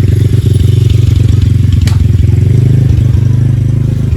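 A small engine running steadily close by, loud, with a fast even pulse and a sharp click about two seconds in.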